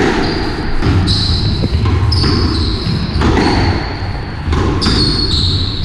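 Squash rally: the ball cracking off rackets and walls about once a second, with short high squeaks of the players' court shoes on the wooden floor between shots.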